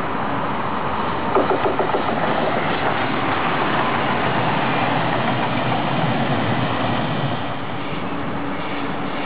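Westfrankenbahn class 628 diesel multiple unit passing close by, its diesel engine running with steady rolling noise. A quick run of clicks from the wheels over rail joints comes about a second in, and the noise eases slightly near the end as it moves away.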